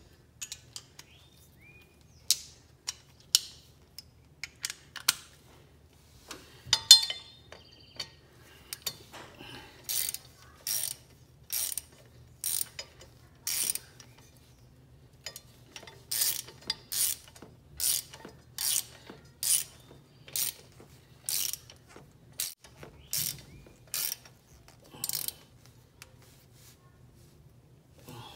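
Hand ratchet with a socket clicking as bolts are tightened on a tractor's pedal linkage bracket. Scattered metal clicks come first, then a steady run of short ratchet back-strokes, about one a second, with a brief pause near the middle.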